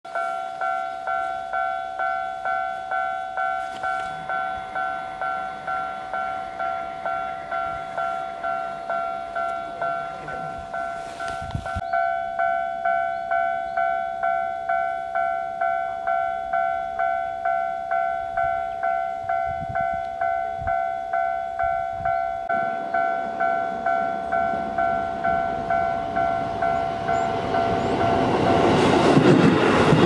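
Japanese level-crossing alarm bell ringing a steady two-tone 'kan-kan' at a little over two strokes a second. About two-thirds of the way in, a Keisei electric train approaching is heard; its rumble grows until it is louder than the bell near the end as the train reaches the crossing.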